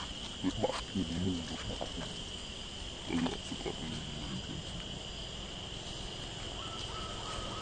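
Macaques giving a few short, low calls, around half a second to a second in and again about three seconds in, over a steady high insect drone.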